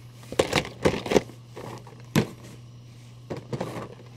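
Boxed action figures in clear plastic window packaging being set down and stacked: a series of short, light plastic knocks and rattles, with a steady low hum underneath.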